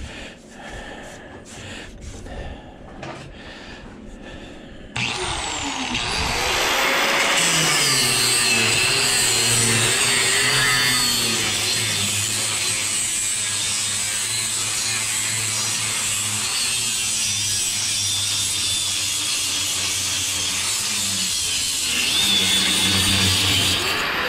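A few light clicks and knocks of handling, then about five seconds in an angle grinder starts with a rising whine and cuts into an aluminum-finned condenser coil. The grinding is loud and steady, its motor pitch wavering as the disc meets the metal.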